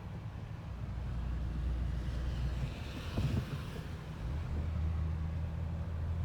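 Car cabin noise while driving on a freeway: a steady low engine and road rumble, with a swell of hiss about two to four seconds in and a brief thump about three seconds in.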